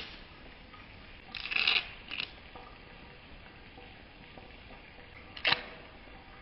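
Table knife scraping as cream cheese is spread on a bagel: a short scrape and a briefer one about a second and a half in, then a sharp click near the end.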